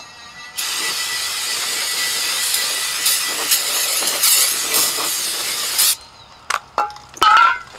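Aerosol spray can hissing steadily for about five seconds, starting and stopping abruptly, as cleaner is sprayed onto an oily steel cover and runs off into a drain pan. A few light clicks and a short squeak follow near the end.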